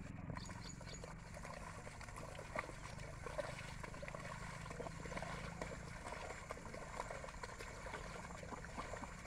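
Two oxen and a levelling plank dragged behind them sloshing through the mud and standing water of a flooded paddy field, a steady irregular crackle of small splashes. A low hum runs underneath.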